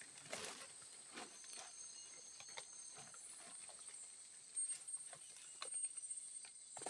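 Steady high-pitched drone of forest insects, with scattered small clicks and knocks, a few louder ones clustered past the middle.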